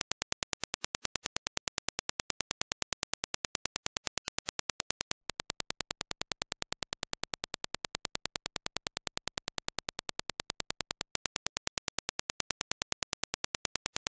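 A fast, even train of sharp test clicks (Dirac impulses), about five a second. There are brief breaks about five and eleven seconds in, where playback switches between the clean reference impulses and the same impulses reproduced by JBL Vibe Beam true wireless earbuds.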